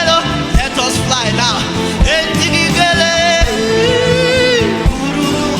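Live gospel worship music: a singing voice carries a wavering melody with one long held note in the middle, over a band with a steady beat and a low drum hit about every second and a half.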